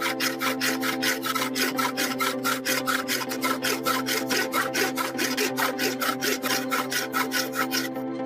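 Hand tool working wood in quick, even back-and-forth strokes, about five a second, a scratchy rubbing that stops near the end.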